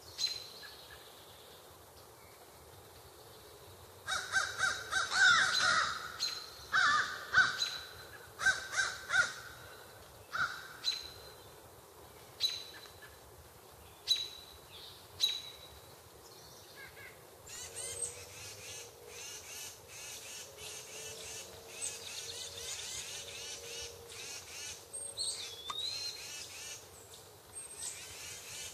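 Wild birds calling: from about four seconds in, a run of loud, harsh calls comes about once a second and thins out by about sixteen seconds, followed by softer mixed chirping and twittering with one short whistled glide near the end.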